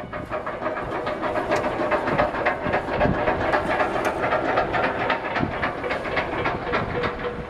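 A boat's diesel engine running steadily, with a fast, even knocking rhythm.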